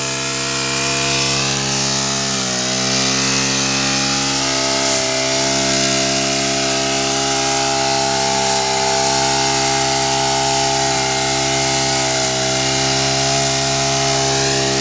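Bronson 1.5 hp grass cutter engine running steadily at high speed while its nylon-line head trims grass, the pitch dipping briefly about two and a half seconds in.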